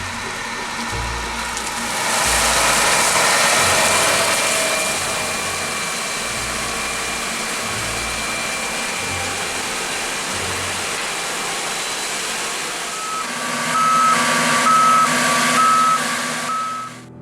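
Heavy farm machinery running with a steady noisy rush. Near the end a reversing alarm beeps about six times, a little more than one beep a second.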